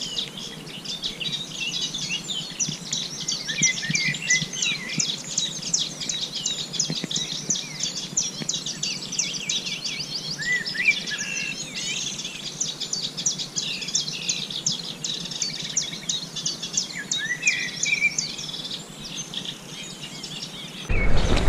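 Birds singing in a dense spring chorus of rapid chirps and trills. Near the end it is cut off suddenly by a much louder low sound.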